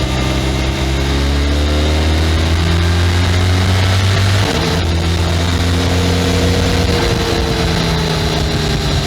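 Benelli 502C's 500 cc parallel-twin engine through its stock exhaust, pulling with slowly rising revs, then dropping suddenly in pitch at a gear change about halfway through. It picks up again briefly, then winds down gradually as the throttle eases off.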